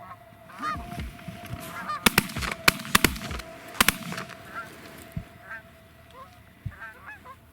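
Geese honking in a quick run of short calls, with a cluster of sharp loud clicks about two to four seconds in.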